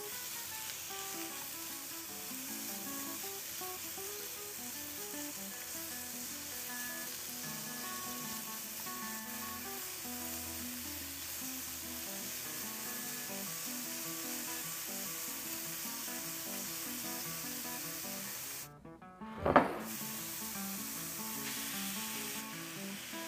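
Minced chicken breast sizzling as it is stir-fried in a frying pan, over soft background music. Near the end the sound drops out for a moment, then comes a single loud knock.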